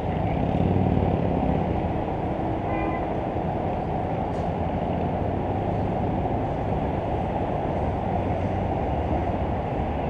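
Steady low rumble of city traffic far below, with a short vehicle horn toot just before three seconds in.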